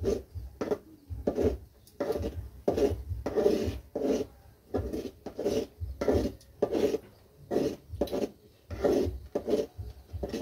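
A metal ladle scraping and stirring semolina in a metal kadai, in a steady run of rasping strokes about one and a half a second. The semolina is being stirred into boiling water to cook upma.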